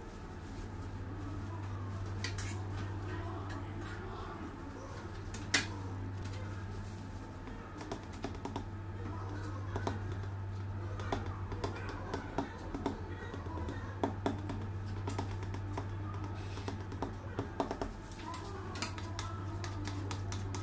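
Light clicks and taps of a palette knife and hands against the cake board and metal turntable while sponge layers are stacked and trimmed. The taps grow more frequent in the second half, over a steady low hum.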